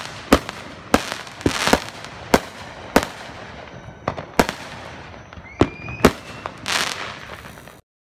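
Aerial fireworks going off: about a dozen sharp bangs at irregular intervals, with crackling hiss between them and a brief whistling tone in the middle. The sound cuts off abruptly near the end.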